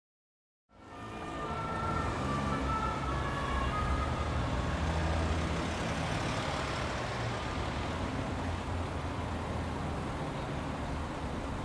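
Truck sound effect: a lorry's engine running with road noise as it drives along. It starts abruptly about a second in, with a few short high tones over the engine in the first seconds.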